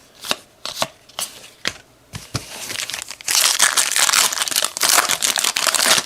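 A few separate sharp clicks, then about three seconds of loud, dense crinkling as a plastic trading card pack wrapper is torn open.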